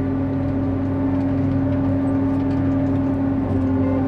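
John Deere 8800i self-propelled forage harvester running steadily: a constant mechanical drone with a strong, even hum.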